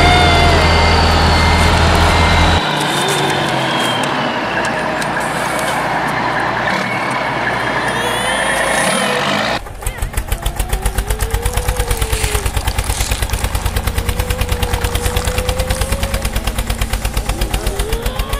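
Engine sound effects: a heavy truck engine running, then, about ten seconds in, an abrupt change to a tractor's diesel engine chugging at a steady rhythm of about five beats a second.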